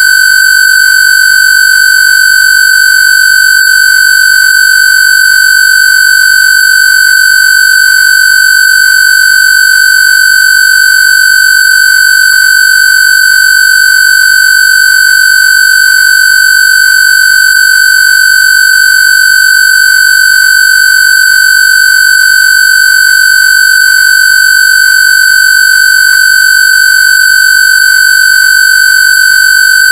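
Synthesized square-wave tone held at one steady high pitch, loud and unchanging throughout, played as a Rife-frequency tone.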